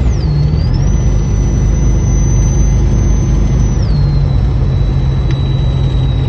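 1996 Chevrolet Caprice Classic running down the road, heard from inside the cabin: steady engine and road rumble with a thin high whine. The whine drops in pitch about four seconds in, and the engine note shifts slightly at the same moment.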